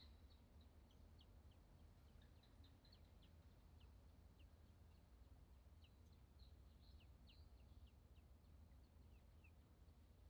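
Faint, scattered short chirps from small birds, each a quick high note falling in pitch, several a second at times, over a low steady rumble of background noise.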